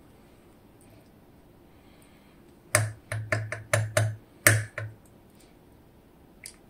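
A quick run of about seven sharp clicks and taps from small metal parts as a DOM IX Twido lock is taken apart and its pins are removed one by one.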